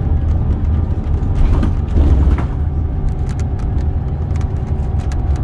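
Cabin noise inside a Scania Caetano Levante 2 coach on the move: a steady deep engine and road rumble, swelling briefly about two seconds in, with a few faint clicks and rattles later on.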